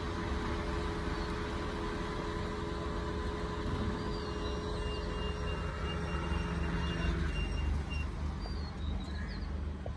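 Datsun redi-GO hatchback's engine running at low speed as the car creeps through a course, with a steady low rumble and a steady hum that stops about seven seconds in.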